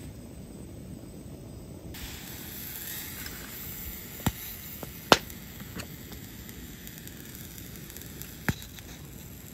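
Gas cartridge camping stove burning with a steady roar, with a hiss of steam from the pot joining about two seconds in. Sharp metal clinks from the pot and its lid being handled, three of them loud, the loudest about halfway through.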